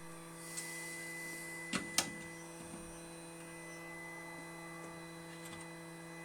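Steady electrical hum with a faint high whine, from a powered-up RX 590 graphics card on the test bench after its shorted DRMOS was removed. Two light clicks about two seconds in.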